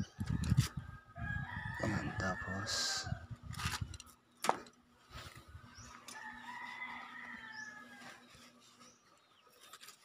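A rooster crowing twice, about a second in and again around six seconds in, each crow rising, holding and falling away. Rustling handling noise runs through the first few seconds, with a sharp click about four and a half seconds in.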